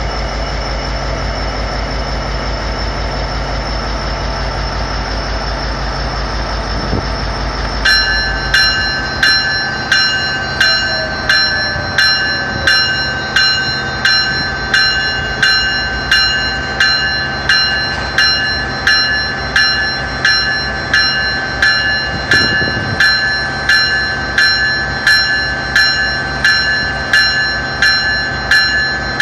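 Steady low rumble of a diesel train engine, then, about 8 seconds in, a level-crossing warning bell starts striking steadily, a little more than once a second, each stroke ringing on over the low rumble of the train.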